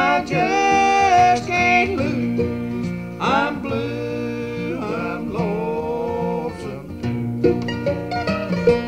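Bluegrass-style country song: guitar and banjo playing, with a voice singing in sliding phrases.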